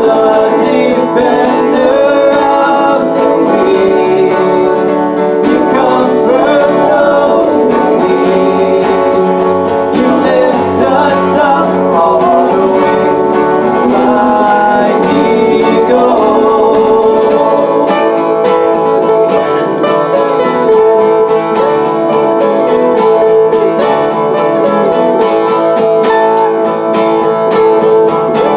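Acoustic guitar with a capo, played continuously with strummed chords and picked notes.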